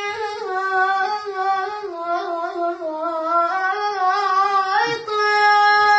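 A solo reciter's voice singing a Shia lament (latmiya) with long drawn-out vowels: a held note, then wavering ornamented runs that dip and rise, jumping up to a higher held note near the end.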